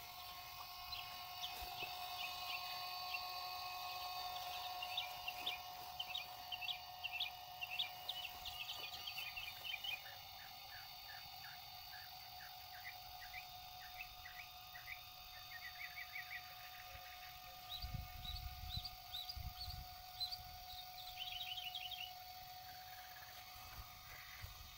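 Small birds chirping in quick repeated phrases over a faint steady hum, with a brief low rumble about eighteen seconds in.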